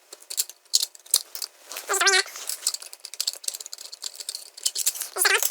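Small metal parts of an opened hard drive being handled and pried at: a quick run of clicks, taps and light rattles, with two brief pitched squeaks, one about two seconds in and one near the end.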